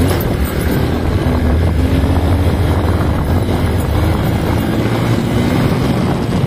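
Motorcycle engine running at riding speed along a dirt road, with a heavy low rumble and the engine note climbing a little through the middle.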